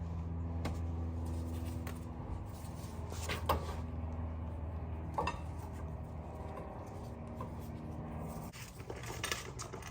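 A steady low mechanical hum that stops about eight and a half seconds in, with a few light clicks and clinks of hand tools about three and a half and five seconds in.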